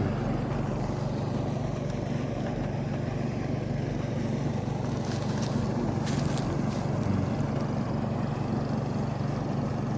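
Pond aerator's electric motor running steadily and churning the water into spray, a low hum under a splashing wash. It is running normally again now that its burnt live-wire connector, which was arcing, has been tightened.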